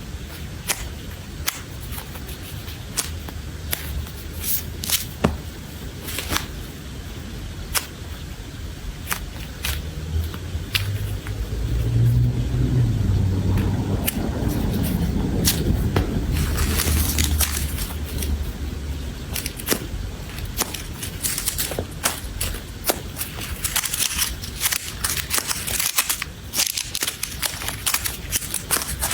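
Close-up crafting handling sounds: many sharp clicks and taps, with stretches of crackling and scraping about halfway through and again near the end.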